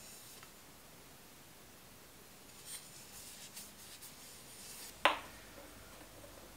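Faint scratchy rubbing of wood on wood, then one sharp wooden knock about five seconds in as a maple spoon is set down on a wooden workbench.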